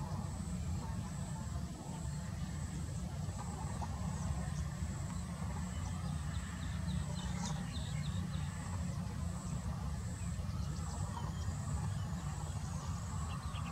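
Low, steady rumble of a Boeing 737's jet engines at taxi idle. Over it runs a thin, high insect whine that comes and goes, with short runs of quick chirps.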